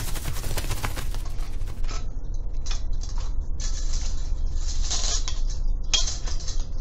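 Rustling and clicking handling noise over a steady low rumble. Rapid small clicks come in the first two seconds, then several short hissy bursts follow.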